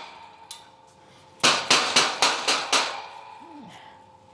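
A quick series of about six sharp knocks in a second and a half, as the shelf of a small utility shelving unit is banged loose to move it up a notch.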